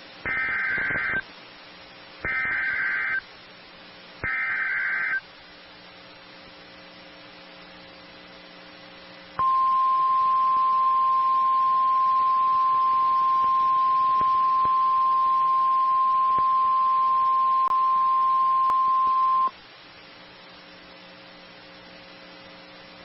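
Emergency Alert System header on a NOAA Weather Radio broadcast. Three one-second bursts of warbling data noise come first. After a pause, a single steady high alert tone holds for about ten seconds and then cuts off, with a faint low hum underneath. It is the alert that opens a tornado watch bulletin from the National Weather Service.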